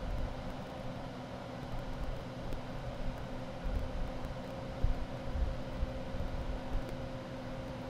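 Central air conditioning unit running steadily: an even rush of air with a faint constant hum and an uneven low rumble that swells a few times.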